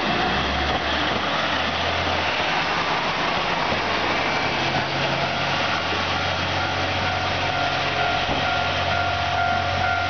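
KiHa 48 diesel railcar running past and pulling away along the track: engine hum and wheel noise on the rails, steady throughout. A steady high tone comes in near the end.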